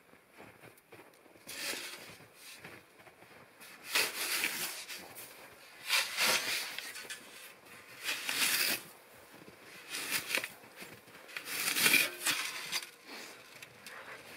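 Snow shovel scooping and scraping through deep powder snow, about six strokes roughly two seconds apart, the loudest near the end. Faint footsteps in the snow come before the first stroke.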